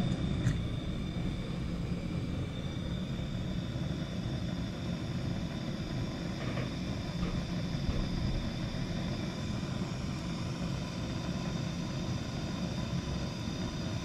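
Hand-held gas blowtorch burning steadily, its flame held on a copper pipe joint to heat it for soldering.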